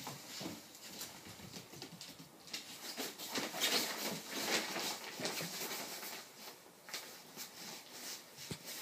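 Miniature bull terrier puppy scrabbling on a hardwood floor and rustling a comforter and cloth as it burrows into them, with irregular paw patter and clicks and a louder stretch of rustling around the middle.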